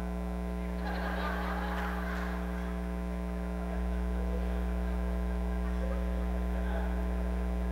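Steady electrical mains hum with a buzzing ladder of overtones, stepping slightly louder about four seconds in.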